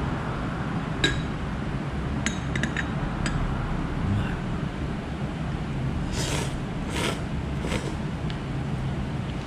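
Light clinks of tableware against a bowl or dish, once about a second in and a few more between two and three seconds in, over a steady low hum of the room. Three short hissing sounds come near the end.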